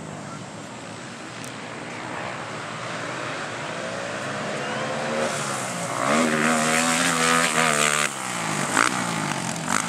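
Race quad (ATV) engines running on a motocross track, faint at first and growing louder; from about six seconds in one runs loud at a steady high pitch for about two seconds, then falls in pitch as it goes by.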